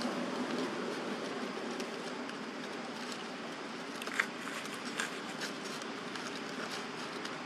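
Steady outdoor background hiss, with a couple of short crackles of dry leaves, about four and five seconds in, as a baby macaque crawls over them.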